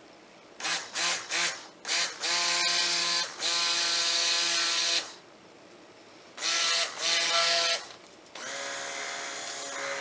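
Electric stick blender whining as it blends cold process soap batter of oils and lye solution toward trace. It runs in several short pulses, then longer runs with a pause around five seconds, and settles into a steady, slightly quieter run from about eight and a half seconds.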